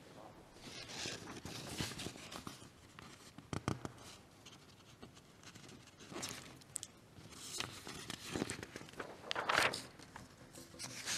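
Quiet room with scattered soft rustling and handling noises, a sharp knock a few seconds in, a couple of light clicks, and a louder rustle near the end.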